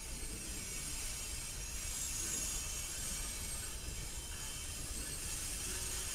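Diesel locomotives of a passing CSX train rolling by: a steady low engine rumble with a hiss of wheels on rail that swells about two seconds in.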